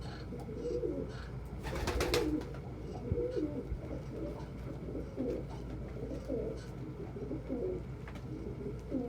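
Domestic pigeons cooing, a run of short warbling coos one after another, with a brief rustling burst about two seconds in.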